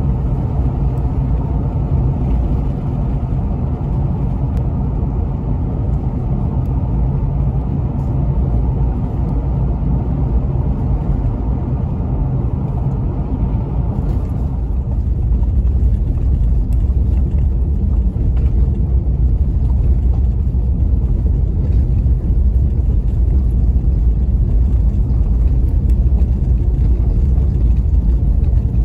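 Steady low rumble of a car's engine and tyres heard inside the cabin while driving, with a steady engine hum over it. About halfway through, the higher hum fades and the low rumble gets louder.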